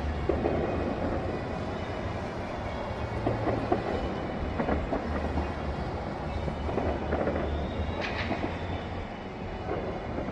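Church bells ringing over a steady low rumble, with a sharper crack about eight seconds in.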